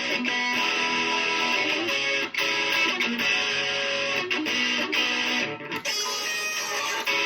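Guitar playing an instrumental pop melody: plucked and strummed notes ring on and change pitch every so often. The sound drops out briefly about two seconds in and again a little past halfway.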